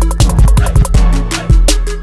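Background electronic music with a heavy bass line and a fast, steady drum beat.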